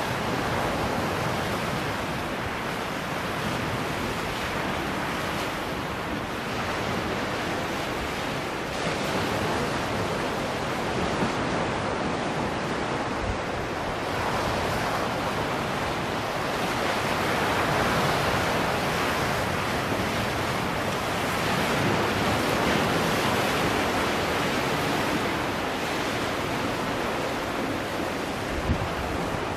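Small ocean waves breaking and washing over shoreline rocks, a steady surf rush that swells louder for a while about halfway through.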